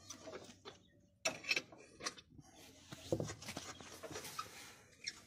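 A few light metallic clicks and taps of a spanner on a tractor rear wheel's nuts as they are loosened by hand.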